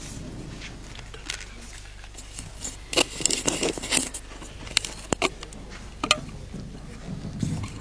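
Handheld microphone being handled and switched over the PA: a cluster of clicks and rustles about three seconds in, then single sharp clicks about five and six seconds in, over a steady low electrical hum.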